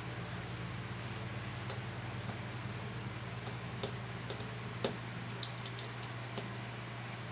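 Scattered small sharp clicks and taps of repair tools on the parts of an iPhone 6s Plus being taken apart, irregular and a few per second, over a steady low hum.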